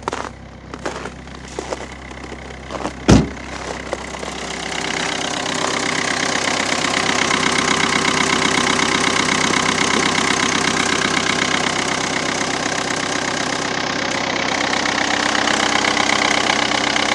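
Ford Focus 1.6 TDCi common-rail diesel engine idling cold, shortly after a cold start at −17.5 °C. A single loud thump about three seconds in; from about five seconds the engine is heard louder and closer, from the open engine bay.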